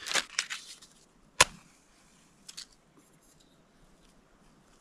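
Light handling rustle, then one sharp strike about a second and a half in: a paper book match being struck to light a solid-fuel stove. A brief, fainter scrape follows about a second later.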